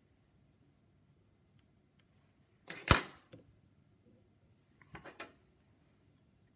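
Small fly-tying scissors and vise being handled: one sharp, loud click about three seconds in, then a few softer clicks and snips about five seconds in.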